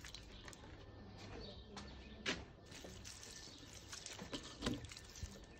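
Water pouring softly from a watering can onto potted plants, with a few sharp knocks from handling.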